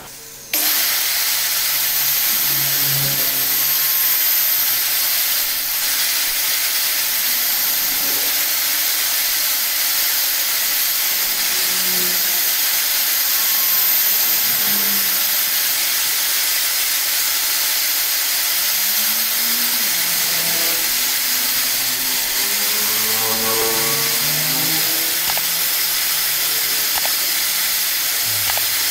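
Angle grinder fitted with a sanding disc, running steadily while a steel sickle blade is held against the spinning disc to sharpen its edge: a continuous loud hissing grind that starts suddenly about half a second in.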